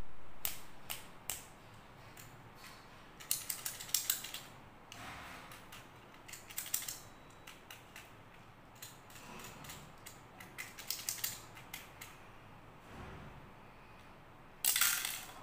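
Hard plastic toy parts and clear candy-filled wheel capsules clicking and rattling as they are handled and pried apart, in several short clusters of clicks. The loudest rattle comes near the end.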